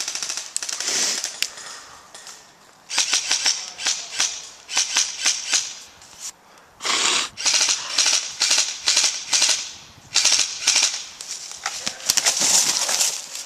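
Airsoft rifle firing several short bursts of rapid sharp shots. Between and around the bursts there are footsteps in dry leaves and snow.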